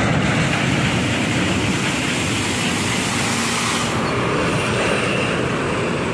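A large box truck's diesel engine and tyres passing close by as it comes down a hill road. A high hiss in the sound stops sharply about four seconds in.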